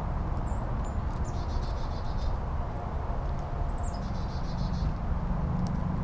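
A small songbird sings twice, each phrase a high note that slides down into a fast trill lasting about a second, over a steady low background rumble.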